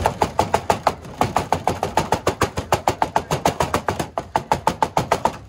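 A heavy cleaver chopping cooked meat on a thick wooden chopping block: rapid, even strokes, about six or seven a second, with a brief pause about four seconds in.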